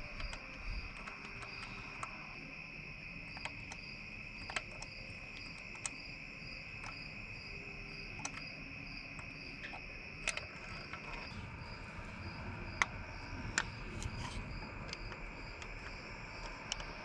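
Scattered light metal clicks of a spark plug socket being handled in the cylinder head of a Honda CBR929RR's engine, over a steady high-pitched whine with a regular chirp about three times a second.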